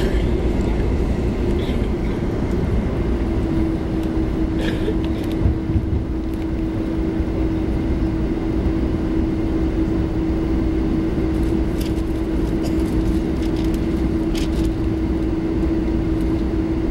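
Cabin noise inside a Boeing 747-400 taxiing: a low rumble with a steady hum at one pitch from the engines at taxi power, which settles slightly lower about three seconds in. There are a few faint knocks.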